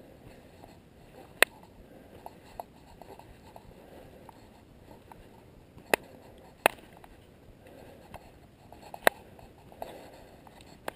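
A hiker's footsteps on a dry dirt trail, a faint steady crunching, with four sharp clicks spread through it.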